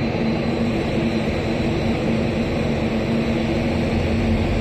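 WDP4B diesel locomotive's 16-cylinder EMD two-stroke engine running steadily, a constant hum over a broad rush of engine noise.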